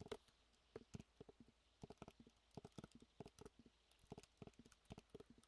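Faint typing on a computer keyboard: quick keystrokes in small irregular clusters with short gaps, as numbers are keyed into a spreadsheet one entry after another.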